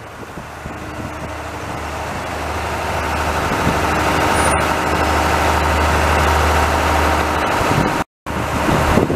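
Diesel multiple unit (NI Railways CAF railcar) with its underfloor diesel engines running: a low, steady hum that grows louder over the first few seconds and then holds. The sound cuts out for a moment near the end.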